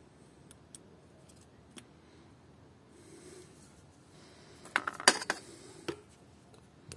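Small hard parts being handled: a few light clicks, then a quick run of sharp clicks and clatter about five seconds in, and single clicks after it.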